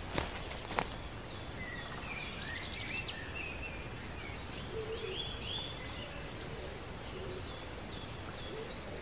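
Forest songbirds singing: a long string of short chirps that slide downward, repeated several times a second with more than one bird overlapping, over a steady background hiss. Two sharp clicks in the first second, footsteps on dry leaf litter.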